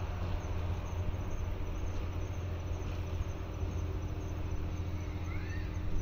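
Steady low hum of an EF81 electric locomotive running off into the distance. Two faint chirps near the end.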